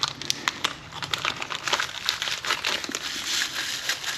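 Packaging being crinkled and crumpled by hand as a new shifter is unwrapped: a run of irregular crackles that grows denser toward the end.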